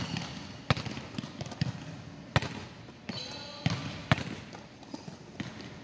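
A volleyball being played off the hands and bouncing on the hard court floor: a series of sharp slaps, irregularly about one a second, echoing in the large hall.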